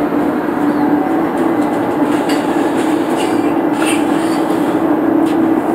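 Inside a RET Type SG3 metro car in motion: a steady running hum over rumbling rail noise, with a few clicks from the wheels on the track.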